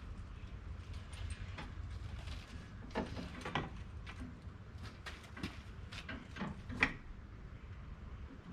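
Faint scattered clicks and knocks of hand tools and metal parts being handled while a radiator is bolted in and its hoses hooked up, with a few louder knocks about three seconds in and again near seven seconds, over a low steady hum.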